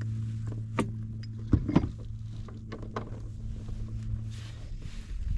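Several sharp knocks and clicks of gear being handled aboard a fishing kayak, the loudest pair about a second and a half in, over a steady low hum.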